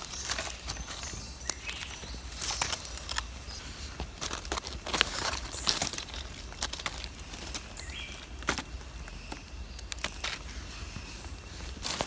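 Dry leaf litter crackling and rustling under hands and a small knife as a mushroom is dug and cut out of the forest floor, in irregular scrapes and crunches.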